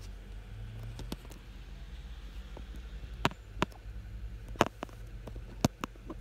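A handful of sharp taps and knocks as fingers handle and cover a phone, over a low steady rumble.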